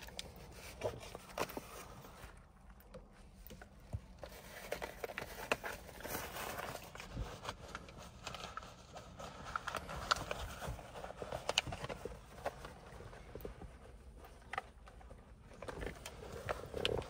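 Scattered clicks, taps and rustling of hands handling small things in a car cabin, starting with a packet of wet wipes.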